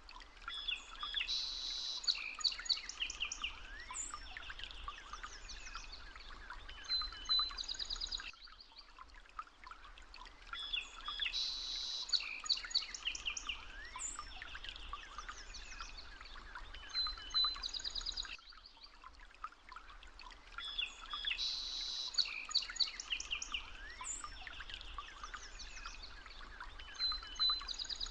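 Birdsong: many small birds chirping and trilling in a chorus, the same stretch of about ten seconds repeating three times over, as a looped nature recording.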